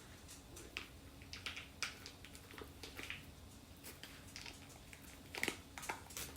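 Knife cutting a soft block of cream cheese into cubes: faint, scattered clicks and taps of the blade, with light squishing.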